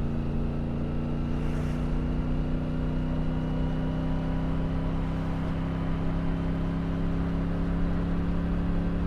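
Triumph Tiger 900's 888 cc inline three-cylinder engine pulling steadily under way, its pitch rising slowly and evenly through one gear.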